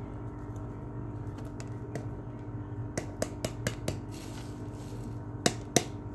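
Spoon scraping and knocking against a frying pan while potato and onion mixture is stirred: a quick run of light clicks about three seconds in, then two louder knocks near the end, over a steady low hum.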